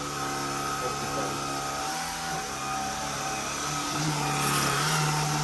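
Shark IZ320UK cordless stick vacuum cleaner running with a steady motor whine and hum; the low hum rises in pitch and gets a little louder about four seconds in.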